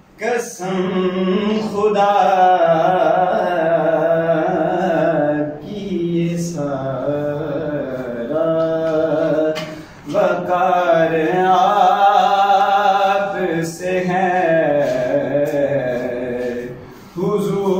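A young man's voice singing an Urdu naat unaccompanied. He holds long, drawn-out notes in four or five phrases, with brief breaks between them.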